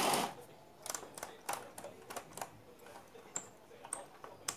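Handling noise on an old radio-cassette's chassis and circuit board: a brief rustling burst at the start, then irregular small clicks and taps, about a dozen, some with a faint high ping.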